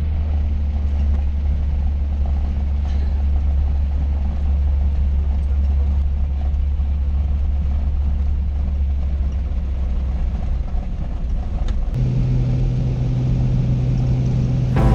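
Single-engine propeller plane's engine running steadily, heard from inside the cabin as a loud low drone. About twelve seconds in, the engine note steps up to a higher pitch as power is increased.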